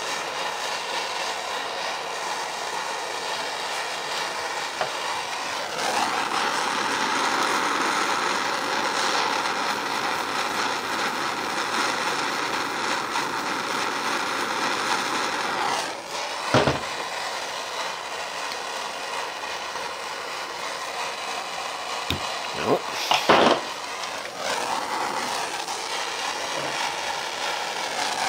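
Heat gun blowing steadily, warming the thread-locked screws of an electric motor's mounting plate to loosen them; it gets louder for a stretch in the first half. A few light metallic clicks of tools come about two thirds of the way in.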